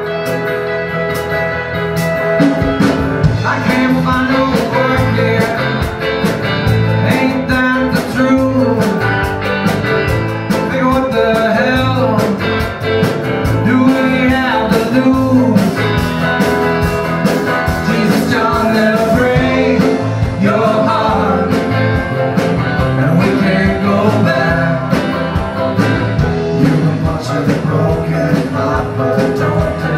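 Live band playing a country-rock song on acoustic guitar, mandolin, electric guitar, bass and drum kit, with a steady drum beat; the band comes in fuller about two and a half seconds in.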